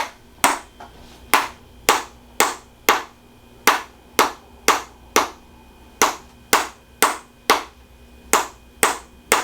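Sharp percussive taps in a steady rhythm, about two a second, falling in groups of four with a short pause between groups.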